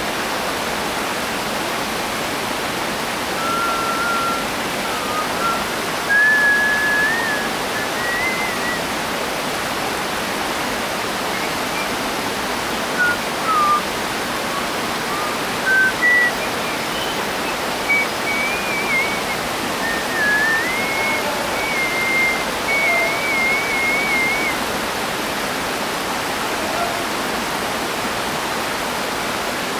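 Steady rush of flowing water from a stream in the gorge. Over it, a string of thin, wavering high whistled notes starts a few seconds in and stops about five seconds before the end.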